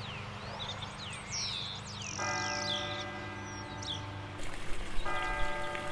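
Small birds chirping, with a church bell ringing from about two seconds in, its tone pausing briefly and sounding again near the end.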